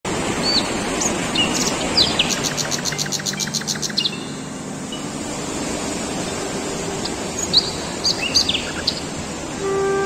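Small birds chirping and calling over a steady outdoor hiss, with a fast, even trill of about a dozen notes two seconds in. Just before the end, a held horn-like musical note begins.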